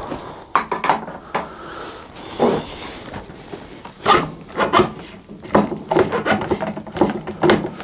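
Scooter front fork and steering-head parts being fitted by hand: a run of short metallic clicks, knocks and scrapes, busier in the second half.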